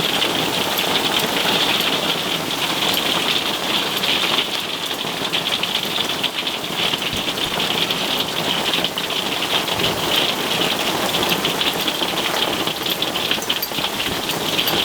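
A hail shower with rain beating on the roof overhead: a dense, steady clatter of countless small hits, never letting up.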